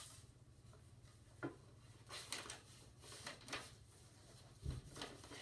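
Faint, scattered rustles and light taps of cards and paper envelopes being handled, with a soft thump about four and a half seconds in.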